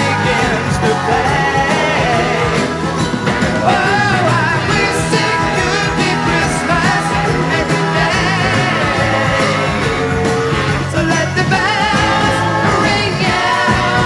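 Music: a song with singing over a full band backing, loud and steady throughout.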